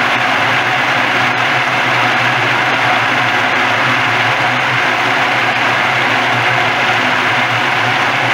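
Walnut husk peeling machine running steadily: a constant motor hum under a dense, even churning noise.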